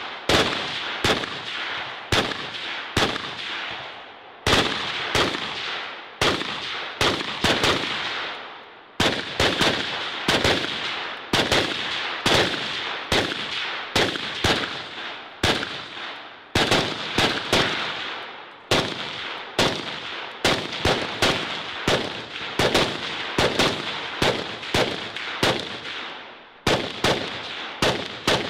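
Semi-automatic rifles firing in fast strings, two or three shots a second, with short pauses between strings. Each shot has a ringing echo after it.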